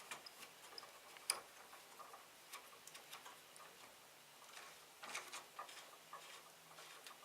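Near silence with faint, scattered clicks of small metal parts being handled by hand, a nut and coupler on a stepper shaft, with one sharper click about a second in and small clusters of ticks later.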